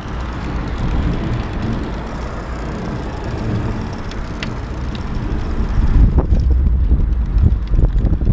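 Wind buffeting the microphone of a bicycle-mounted action camera while riding, over the rumble of the tyres on the road; the low rumble grows stronger about six seconds in, with a couple of short ticks midway.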